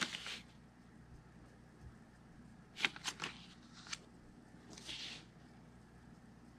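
Paper banknotes being handled and flipped through by hand: a crisp paper snap at the start, a cluster of snaps about three seconds in, another near four seconds, and a softer rustle about five seconds in.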